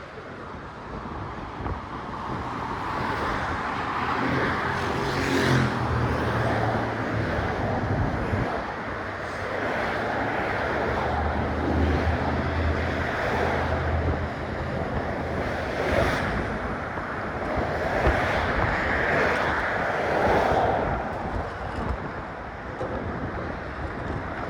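Motor traffic passing on the bridge roadway: a continuous rush of tyres and engines that swells and fades as vehicles go by, with a low engine hum from a heavier vehicle a few seconds in and again near the middle. Wind buffets the phone's microphone.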